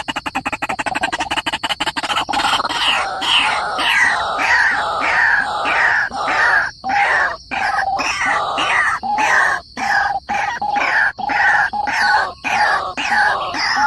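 White-breasted waterhen calling: a fast rattling chatter for about the first two seconds, then a long run of repeated falling notes, about two a second.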